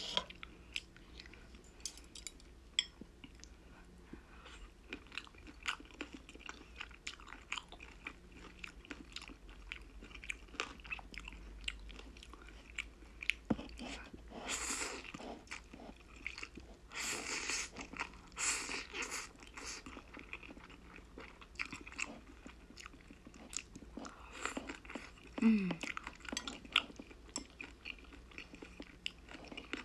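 Close-up eating sounds: wet chewing, smacking and crunching of spicy black-bean instant noodles and boneless spicy chicken feet, many short clicks. In the middle come a few longer slurps as mouthfuls of noodles are sucked in, and about three-quarters of the way through there is a brief falling hum from the eater.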